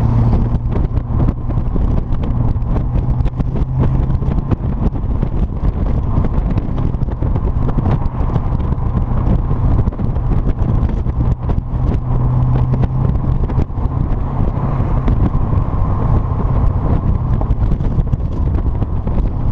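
Triumph TR7's 3.9-litre Rover V8 running through a single-bore exhaust: a steady, deep exhaust note that holds at an even pitch with only slight rises and falls.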